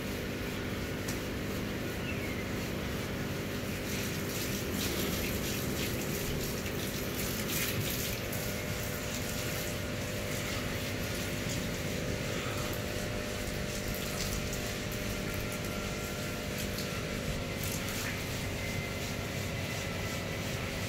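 Steady running and splashing water over a continuous low pump hum, with a few faint knocks.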